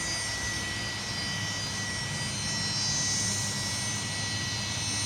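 Fokker 100's Rolls-Royce Tay turbofan engines running: a steady jet whine with high whistling tones over a low rumble.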